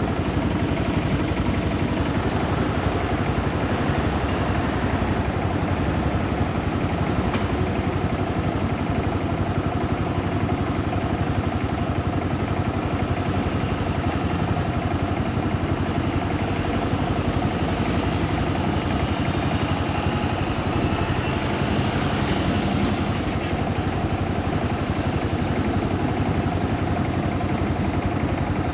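Yamaha SRX400's air-cooled single-cylinder engine running steadily, on a bike whose owner suspects a blown transmission and a slipping clutch.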